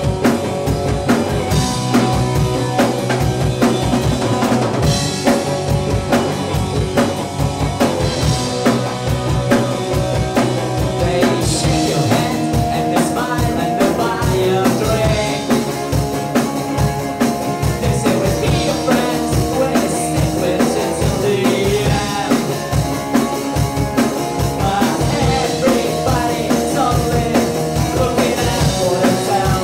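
Rock band playing live: electric guitar and bass guitar over a steady drum-kit beat.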